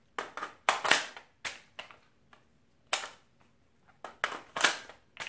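An AR-15 rifle being handled as a magazine is pulled from and pushed back into the magazine well: a dozen or so sharp metallic clicks and clacks in irregular groups, with a busy cluster in the first second or two and another near the end.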